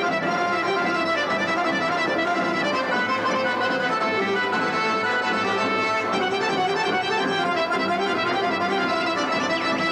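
Accordion playing traditional folk dance music, steady and unbroken, accompanying a stage folk dance.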